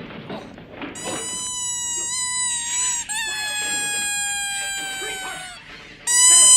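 Rubber squeaky dog toy squeezed in long, drawn-out squeals: one from about a second in, a second that sags slowly in pitch, and a louder third starting near the end. A scuffle on the film soundtrack runs underneath.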